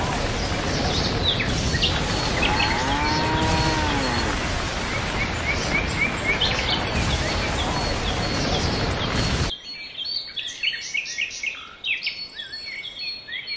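A dense, steady storm-like rushing noise with birds chirping over it. About three seconds in, a cow gives one long moo that rises and falls. About two-thirds of the way through, the rushing cuts off abruptly, leaving only the birds chirping.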